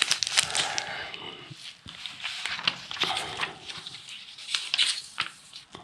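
Plastic groundbait packaging and paper rustling and crinkling as they are handled, with many small irregular crackles.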